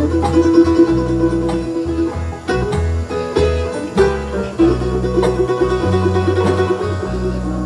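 Bluegrass band playing an instrumental passage with no singing: banjo, mandolin, acoustic guitar, lap-style dobro and electric bass, with a steady bass line under held and sliding lead notes.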